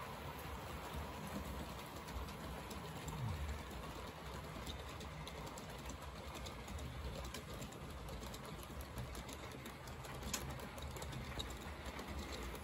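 Model diesel locomotive and a rake of tank wagons running along a model railway layout: a steady low running sound from the train, with many small clicks of wheels over the track, and one louder click about ten seconds in.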